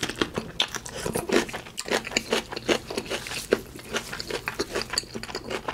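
Close-miked eating sounds: wet chewing and lip smacking, with sauce being sucked off a finger, in quick irregular clicks and smacks.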